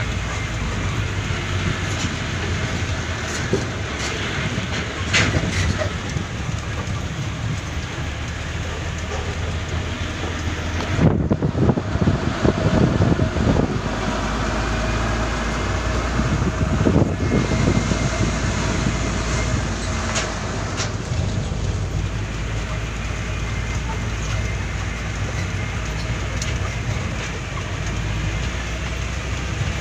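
Cab interior noise of a Fuso dump truck driving over a rough dirt road: a steady engine rumble under constant rattling and clatter from the cab. About a third of the way through, heavier knocking and jolting rattles come for a few seconds, and again briefly a few seconds later.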